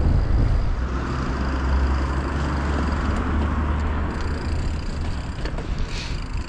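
Wind rumbling on the microphone of a handlebar-mounted camera on a moving road bike, with tyre and road noise from riding over paving.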